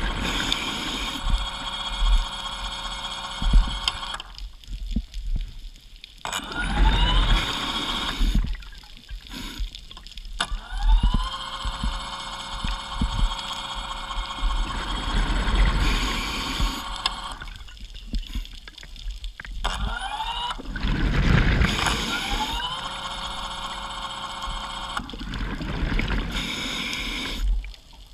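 Underwater scooter's electric motor and propeller whining with a steady pitch, stopping and restarting three times, its pitch rising each time it spins back up. Low bubbling rumbles underneath.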